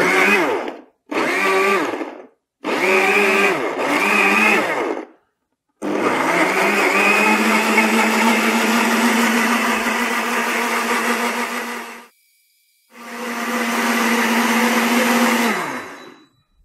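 Two Vidia BL-001 high-speed blenders running together on chunks of apple in water. First four short pulses, then a steady run of about six seconds, a brief stop, and a final run of about three seconds that winds down as the motors are switched off.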